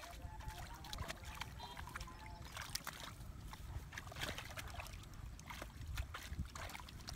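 Hands sloshing and splashing in shallow muddy paddy water while groping for fish, with many small irregular splashes and drips over a faint low rumble.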